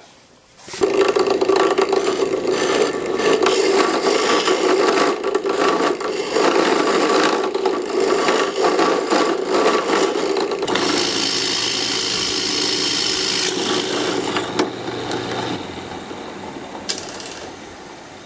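Wood being worked with a tool: a continuous rasping, scraping noise starting about a second in. Past the middle a steady motor hum joins for a few seconds, then the sound gradually dies down near the end.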